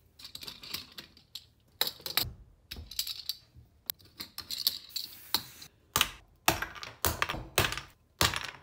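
White plastic resin-mold bars and blocks being pulled apart and knocked loose from a cured epoxy pour, with irregular clicks, rattles and scrapes. In the second half about six sharp knocks follow as a hammer taps the mold pieces free.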